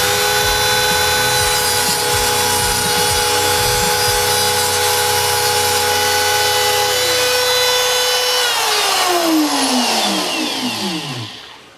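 High-speed rotary power tool cutting away material on an AR-15 near the barrel nut. A steady high whine runs over a rough grinding hiss. About two-thirds of the way in, the motor is switched off and winds down, its pitch falling until it stops near the end.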